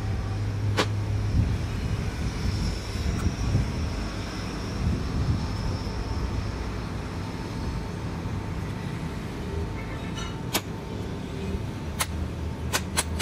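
Steady low hum of machine-shop machinery running, with a few sharp clicks, one about a second in and several more near the end.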